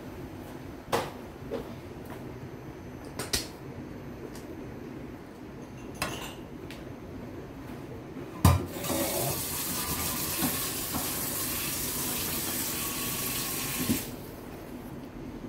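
A few scattered clinks and knocks, then a sharp knock about eight seconds in and a kitchen tap running into a sink for about five seconds before it is shut off suddenly.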